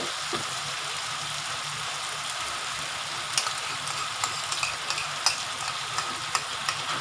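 Onions, garlic and chilli sizzling steadily in hot oil in a metal wok as oyster sauce is added. From about three seconds in, a metal spatula taps and scrapes against the wok as it stirs, in sharp, irregular clicks.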